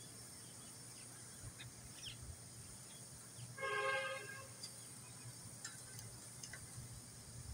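A horn honks once, briefly, a little past the middle, over a steady outdoor background hiss with a few faint short chirps.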